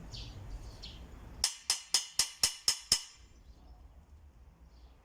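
A quick series of seven sharp, light taps, about four a second, from hand work on a fireplace lintel setup.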